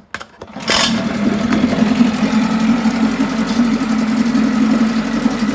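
1982 Mercury 7.5 hp two-stroke outboard motor starting: a few short clicks, then it fires up under a second in and runs steadily, with its lower unit in a test barrel of water.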